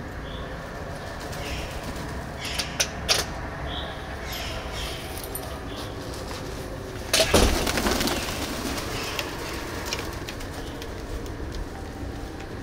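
Feral pigeons feeding from a plastic tray, with a few sharp taps a little over two seconds in and a loud burst of wing flapping about seven seconds in.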